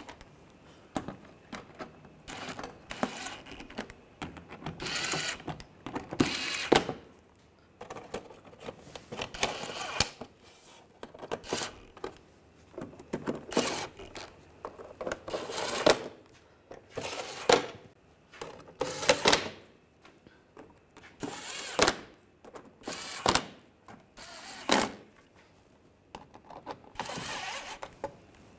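Cordless power driver running in short bursts, a dozen or more, each under a second and a second or two apart, with a high motor whine, as it runs down and tightens a row of bolts one after another.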